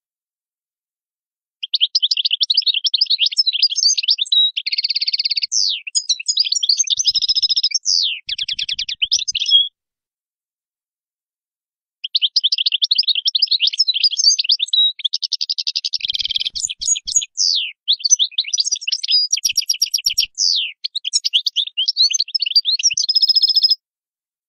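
European goldfinch singing in two long phrases of rapid twittering, with fast trills and quick sweeping notes. The phrases are separated by about two seconds of dead silence.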